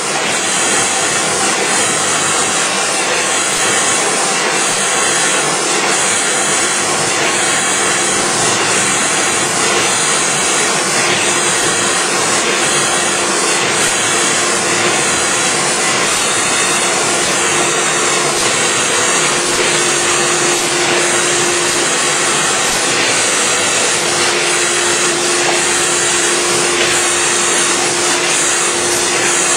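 Kase Equipment 9-colour dry offset cup and pail printing machine running: a steady, even mechanical noise with a high hiss and a constant hum tone.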